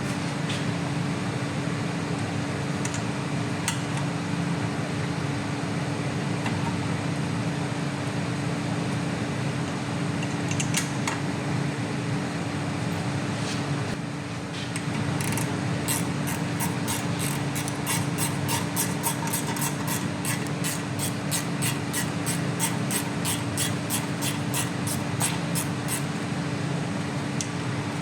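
A steady mechanical hum with a fixed tone, with a few single clicks. About halfway through comes a fast run of ratchet clicks, about four a second for some ten seconds, as a hand ratchet winds in the new brake caliper bolts.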